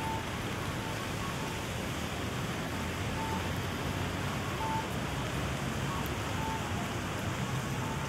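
Steady hiss of rain falling. Faint short beeps recur about every second and a half.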